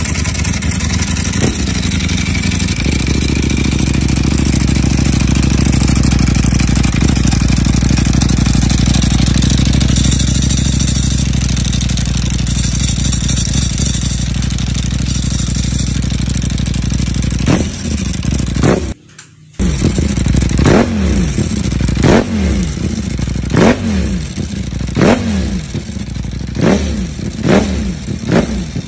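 Motorcycle engine running at a steady idle, then, after a brief drop-out, revved in a series of short throttle blips about every second and a half, each rising and falling back quickly.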